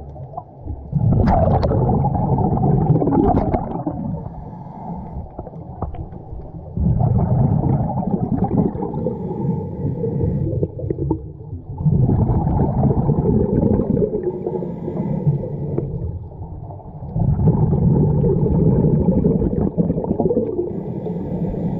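Scuba diver breathing through a regulator underwater: four long exhalations of rumbling, gurgling bubbles about every five seconds, with quieter inhalations between them.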